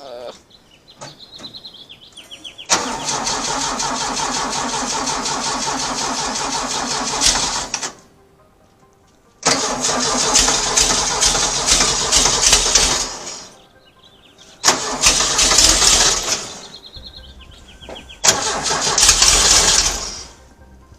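2332cc VW air-cooled flat-four stroker engine being started after a valve adjustment, cranked in four separate tries of a few seconds each with short pauses between, each with a fast, even pulsing.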